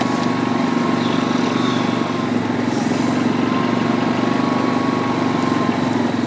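Yamaha Grizzly 700 ATV's single-cylinder four-stroke engine running at a steady speed.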